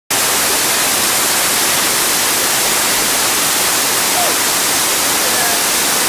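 Waterfall pouring into a rock pool: a loud, steady rush of falling water.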